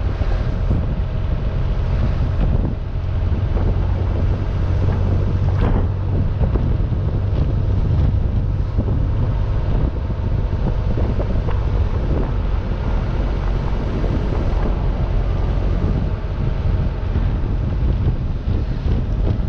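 2.7-litre twin-plug air-cooled flat-six of a 1972 Porsche 914-6 running steadily while the car cruises, heard from the open cockpit with wind buffeting the microphone.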